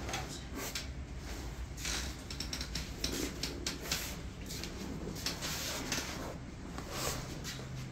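Rustling and creaking of a person shifting on a leather treatment couch, clothing brushing against the cover, in many short irregular rustles over a low steady hum.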